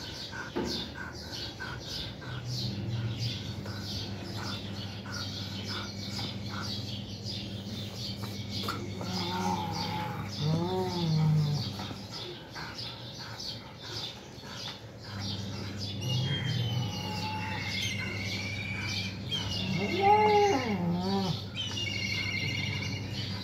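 Two cats in a standoff, one keeping up a long, low growl that is broken by loud rising-and-falling yowls, once about ten seconds in and again near the end.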